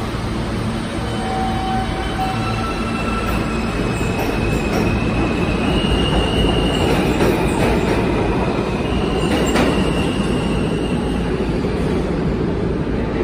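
New York City subway G train pulling out of the station and accelerating past: the rumble of wheels on track builds and peaks midway, with a high whine that climbs in steps as it picks up speed.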